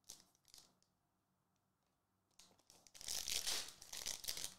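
Foil trading-card pack being torn open and crinkled, a loud papery rustle starting about halfway through after a few faint ticks.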